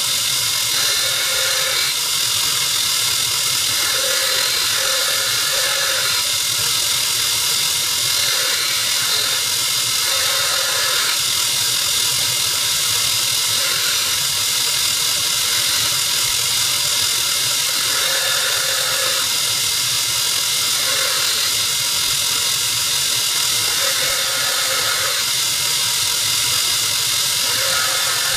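A belt grinder runs steadily while a steel knife blade is ground freehand against the moving belt to form its bevel. The rasping grind swells and fades every second or two as the blade is drawn across the belt.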